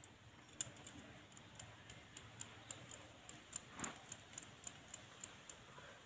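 Light, quick clicking, about four clicks a second, as hands roll a piece of biscuit dough between the palms, with one duller knock a little before the four-second mark.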